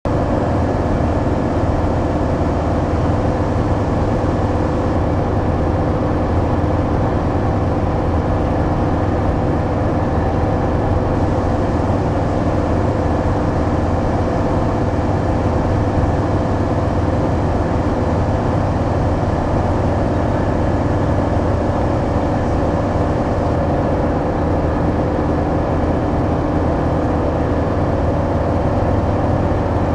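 Calima MXP-780 ultralight's engine and propeller running steadily in level flight, heard from inside the cockpit.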